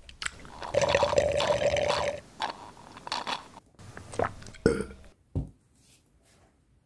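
Close-up drinking sounds: a slurp through a drinking straw lasting about a second and a half, then several separate gulps and wet mouth clicks, the last a low gulp.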